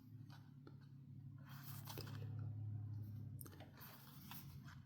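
Faint handling of Yu-Gi-Oh! trading cards: soft clicks and light rustling as cards are slid and flipped through one by one, over a steady low hum.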